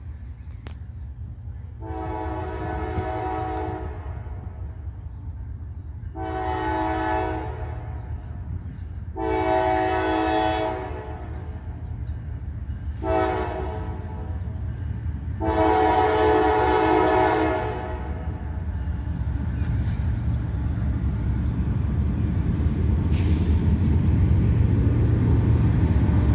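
Norfolk Southern diesel locomotive's air horn sounding a chord in five blasts: the fourth is short and the last is held longest, ending in the long-long-short-long grade crossing signal. Under it, the low rumble of the approaching locomotives grows steadily louder toward the end.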